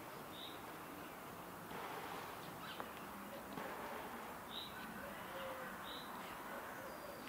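Quiet room ambience with soft rustling and three short, high chirps, about half a second in, past four and a half seconds and at six seconds.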